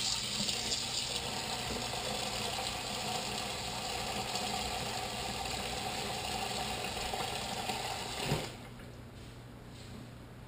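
Kitchen faucet running water into a bowl of fish pieces in a stainless steel sink, a steady rush as the bowl fills. The tap is turned off about eight seconds in and the water stops.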